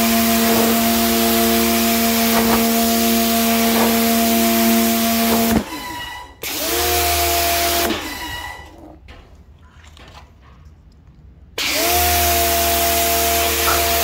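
Electric pressure washer running, its motor humming under the hiss of the jet on algae-covered concrete. The motor and spray cut out about five and a half seconds in and restart a moment later with a rising whine, then cut out again around eight seconds in and spin back up near the end, as the trigger is let go and squeezed.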